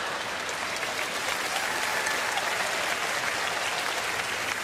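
Audience applauding, a steady even clapping that lasts throughout.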